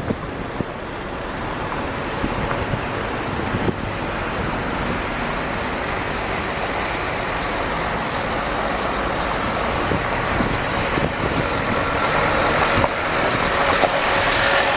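Motor vehicle engine and road noise running steadily, growing a little louder toward the end, when a steady hum joins in for the last few seconds.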